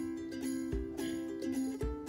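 Background music: sustained instrumental notes over a soft low beat about once a second.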